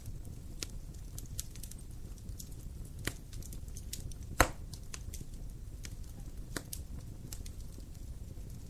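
Wood fire crackling: a steady low rumble of burning with scattered sharp snaps and one loud pop about four and a half seconds in.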